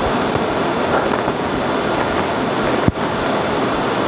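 Steady, loud rushing noise like wind or surf, with a brief break about three seconds in.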